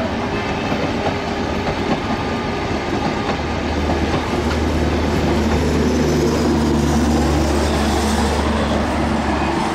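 Broad-gauge passenger coaches of a passing train rolling by, their wheels rumbling and clattering over the rail joints. A low steady hum comes in during the second half and stops near the end.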